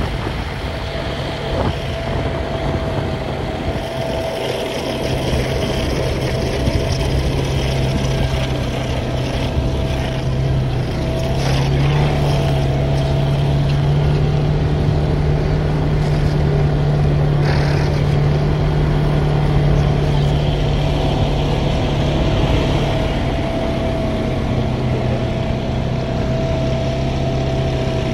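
A vehicle's engine running steadily under way, with wind noise. Its pitch and loudness rise a little about eleven seconds in and ease back near the end.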